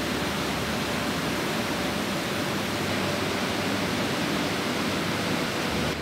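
Waterfall pouring over a rock ledge: a steady, even rush of falling water.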